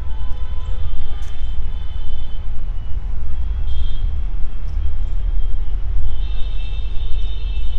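Loud outdoor background noise: an uneven low rumble that rises and falls throughout, with faint high tones entering about six seconds in.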